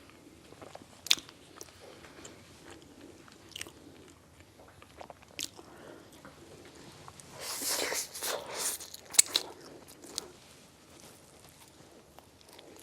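Close-miked chewing and biting of food: soft, wet chewing with a few sharp crunches, then a louder run of crunchy bites about eight to nine and a half seconds in.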